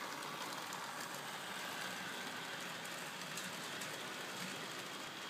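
HO scale model train running along the track: a steady whir from its small electric motor and wheels with light clicks on the rails.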